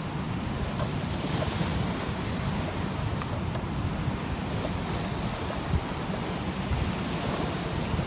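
Steady wind buffeting the microphone outdoors, a low rumbling hiss, with a few faint ticks.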